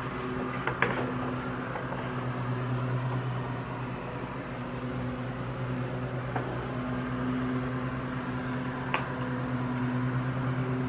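A steady low hum of a machine running in the background, with a few light clicks about a second in, around six seconds in and about nine seconds in as the carburetor mounting bolts and parts are handled.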